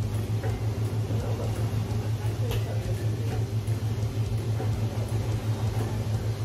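Steady low machine hum, with a few faint clicks over it.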